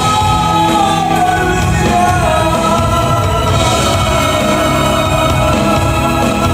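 Gospel worship song: voices singing long held notes over a steady band accompaniment.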